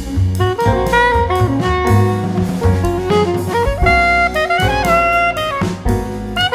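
Background music: an upbeat instrumental tune with a melody line over a steady drum beat.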